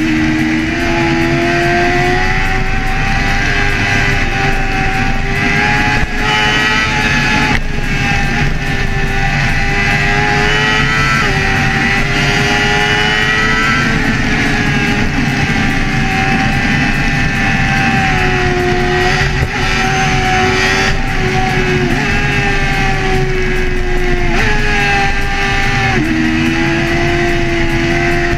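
Sport bike engine running hard at high revs, heard from onboard at speed; its pitch climbs steadily and then drops or jumps suddenly at several gear changes.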